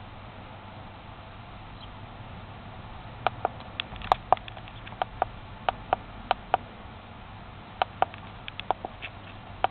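Irregular sharp clicks, about twenty of them starting some three seconds in, typical of buttons pressed on a handheld diagnostic scan tool, over a low steady hum.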